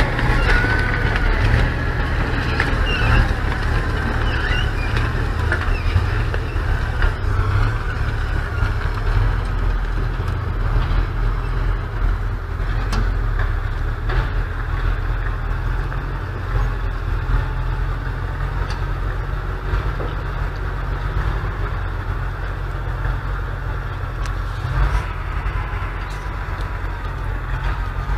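Heavy log truck's diesel engine running steadily under load as it hauls a full trailer of logs over muddy ground, a deep drone with a faint whine above it.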